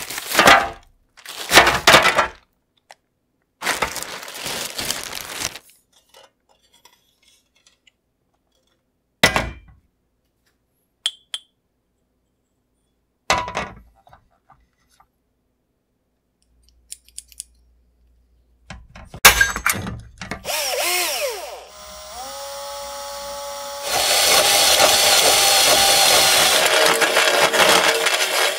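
Handling noise first: a cloth sheet rustling, then a few separate knocks and taps. Near the end a cordless drill spins up with a rising whine and runs steadily. A hole saw then bites into the sheet-metal brake dust shield, a loud grinding cut lasting about four seconds.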